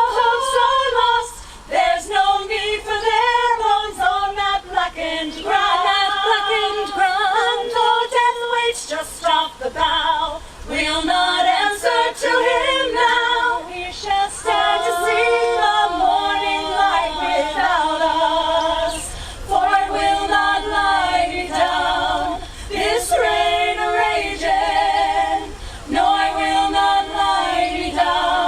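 Vocal group singing a cappella in harmony, several voices holding different notes together in phrases with short breaths between them.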